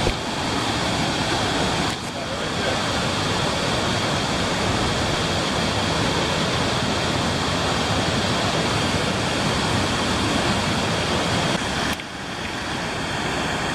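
Waterfall rushing: a steady, loud wash of falling water close to the microphone, briefly dipping in level about two seconds in and again near the end.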